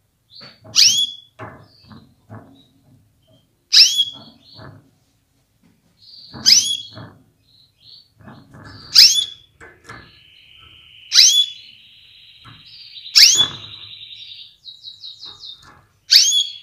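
Female canary calling: a sharp, rising call repeated seven times, about every two and a half seconds. From about ten seconds in a buzzy trill runs under the calls, with a short run of rapid notes near the end, and soft knocks sound between the calls.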